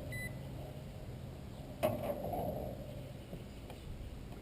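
A digital multimeter's short high beep right at the start, then one sharp metallic click with a brief ring about two seconds in, over a low steady hum.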